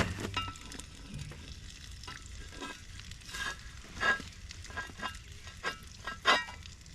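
Pancakes frying in a pan: a steady sizzle with scattered crackles and pops, and a few louder sharp clicks, the loudest about four and six seconds in.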